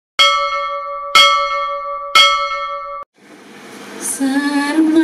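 A bell struck three times, about a second apart, each strike ringing on until the next. The ringing cuts off abruptly after the third. Near the end a woman starts singing a Malayalam prayer to God into a microphone.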